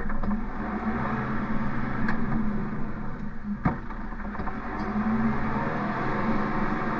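Engine of a bale-handling farm machine running steadily, with two sharp knocks, about two and three and a half seconds in.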